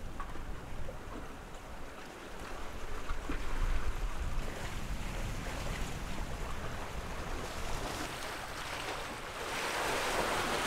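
Wind buffeting the microphone over water washing past a catamaran's hulls as it sails in, with no engine running; the rushing hiss swells near the end.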